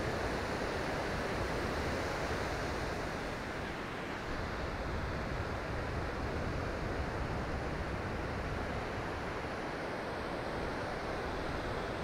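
Steady rush of surf breaking on a sandy beach, with some wind on the microphone.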